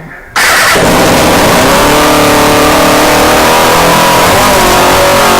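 Suzuki GSX-R400 inline-four engine, with no exhaust fitted, running very loud. It comes in suddenly a moment in and revs, its pitch wavering up and down.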